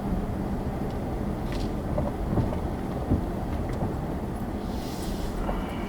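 Steady engine and road rumble heard from inside a vehicle moving slowly, with scattered small knocks and rattles and a brief hiss about five seconds in.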